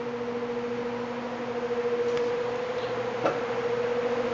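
Steady machine hum made of a few even tones, with faint ticks and one sharper click about three seconds in.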